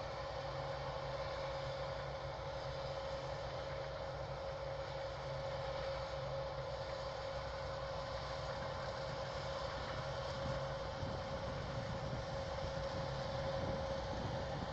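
Combine harvester running steadily as it harvests barley: an even engine drone with a constant whine held over it.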